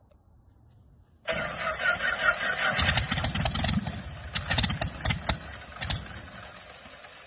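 Lycoming O-235 four-cylinder aircraft engine on a run stand being started: it cuts in suddenly about a second in and fires unevenly with a string of sharp bangs for several seconds, then drops to a lower, steadier sound near the end.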